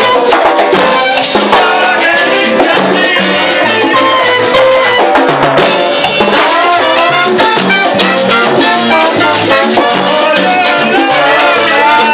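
Live salsa band playing: trombones and trumpets over congas. The horns are loud and close, picked up from within the brass section.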